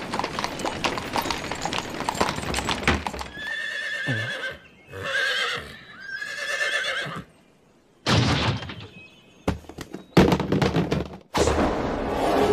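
Horse hooves clip-clopping with a carriage rolling, then a horse whinnying in a few long wavering calls. Near the end come a few loud, sudden sounds.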